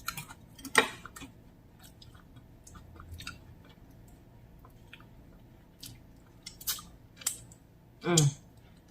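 Close-miked chewing of food, with scattered wet mouth clicks and lip smacks, one louder smack about a second in, and a brief vocal sound near the end.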